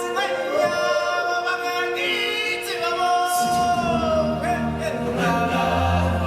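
Choral music: voices singing long held notes, with a low bass part coming in about halfway through.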